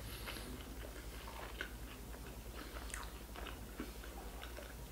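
A person chewing a mouthful of burger with the mouth closed: faint, irregular small clicks and smacks.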